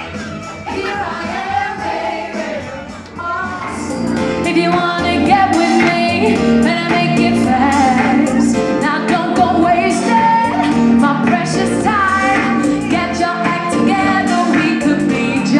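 A woman singing a pop song live into a microphone over a backing track. The music gets louder and fuller about four seconds in, with a steady beat.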